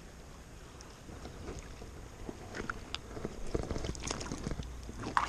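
Water sloshing and splashing in a river, faint at first and busier and louder from about a second in, with scattered small knocks.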